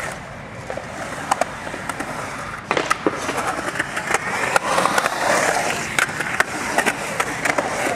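Skateboard wheels rolling and carving on the smooth concrete of a skate bowl, a steady rough rolling noise with many sharp clicks and knocks from the board. The rolling grows louder from about a third of the way in and eases off again near the end.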